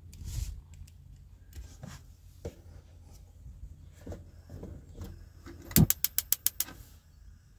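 Spark igniter of a Dometic gas hob clicking rapidly, about eight sharp clicks in under a second, as the burner under a pan of milk is lit. Before it, a soft knock and handling sounds near the start.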